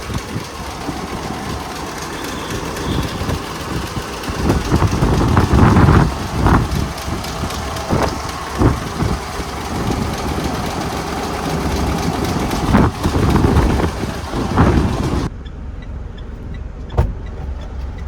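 Mitsubishi Pajero Sport's diesel engine running as the SUV pulls away and drives slowly, with several short knocks or bumps along the way. About fifteen seconds in, the sound suddenly turns duller as the higher sounds drop out.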